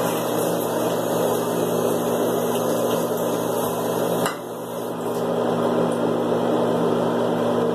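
Steady hum and rush of a small electric motor, running evenly, with a brief drop in level about four seconds in.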